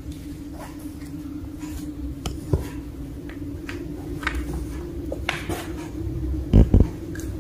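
Cats playing with toys: scattered light taps, scrapes and clatters over a steady hum, with two heavy thumps close together near the end.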